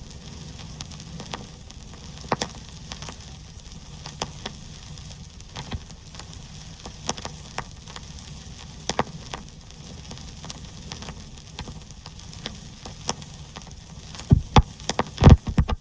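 Vinyl record surface noise: a steady hiss with irregular crackles and clicks, and a handful of louder pops near the end.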